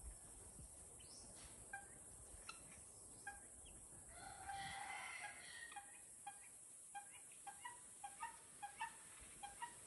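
Helmeted guineafowl giving faint, short repeated calls: a few spaced calls, a louder burst of chatter about four to five seconds in, then a quickening run of clipped calls near the end.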